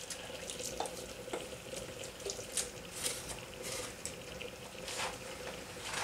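Soft wet scraping of a thick egg-and-cheese mixture being scraped out of a stainless steel bowl and spread across a parchment-lined baking tray, with a handful of light clicks from the utensil against the bowl and tray. A faint steady hum runs underneath.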